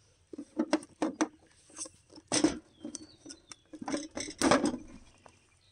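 Handling noise from a 3D-printed plastic swarm-catcher box and its straps: a series of separate clicks, knocks and short rustles, two of them louder, about two and a half and four and a half seconds in.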